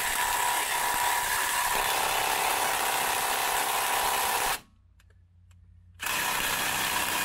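Small 3/8-inch impact wrench hammering on a seized sway bar fastener that won't break loose. It runs in two long bursts with a pause of about a second and a half between them.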